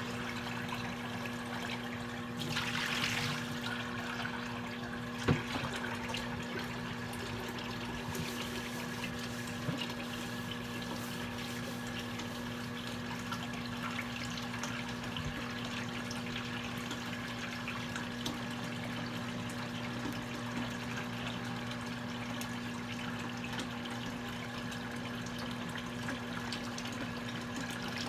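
Kitchen tap running steadily, with a steady low hum underneath. There is a single knock about five seconds in.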